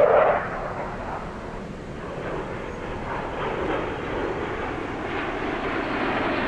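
Jet engine noise from a formation of four F-16 Fighting Falcons climbing out after departure: a steady, distant jet rumble. It swells briefly right at the start, dips slightly about two seconds in, then builds again.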